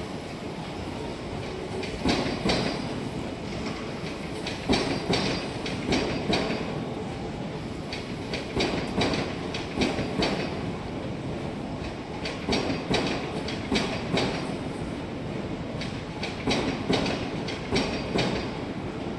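Odakyu electric train rolling slowly through the station, its wheels clacking over rail joints and points in repeated groups of strikes every second or two over a steady rumble.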